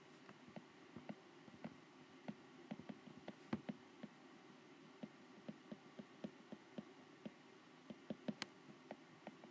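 Faint, irregular clicks and taps of a stylus on a tablet screen while handwriting, a few of them sharper, over a low steady hum.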